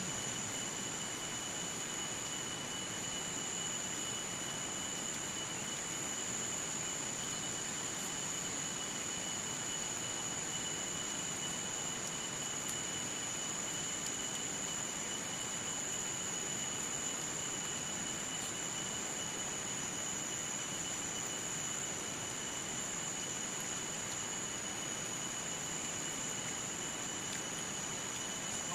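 Insects droning steadily, two unbroken high-pitched tones over an even background hiss.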